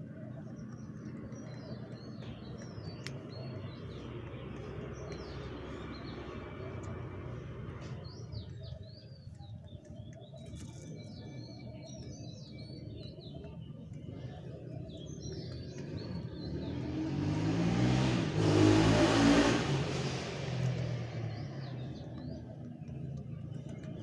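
Small birds chirping repeatedly over a steady low rumble. A motor vehicle passes by, swelling to the loudest sound about three quarters of the way through, then fading away.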